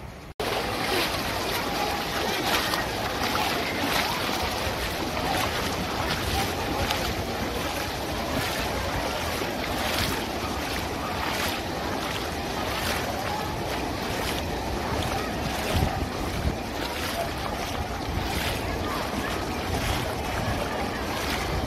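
Surf in a large wave pool washing over the sandy shallows, a steady rush of water with frequent gusts of wind buffeting the microphone.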